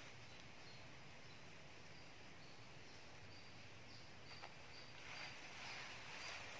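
Faint natural ambience: short high chirps from small animals repeat about twice a second over a soft hiss, and the hiss swells slightly near the end.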